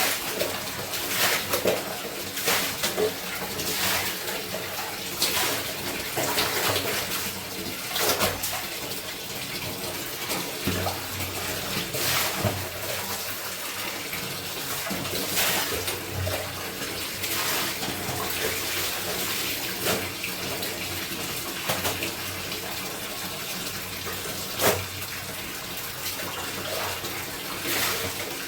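Water running steadily from a tap, with irregular splashes and slaps as clothes are washed by hand in the water.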